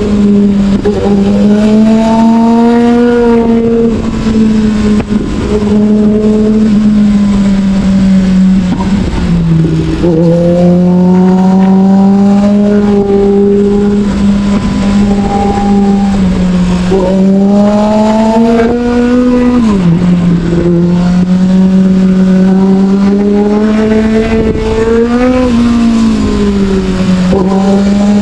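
Sportbike engine heard from on board the moving bike, at moderate revs. The engine note climbs slowly and steadily, and drops sharply twice, about ten and twenty seconds in.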